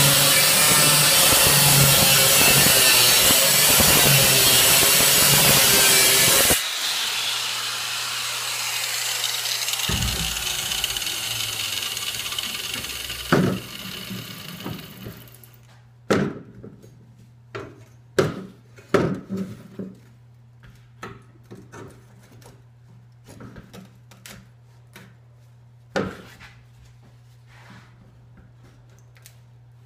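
Angle grinder with a cut-off wheel cutting through steel for about six seconds, then let off and winding down over several seconds. After that, scattered knocks and clatter of metal pieces and tools being handled on a workbench.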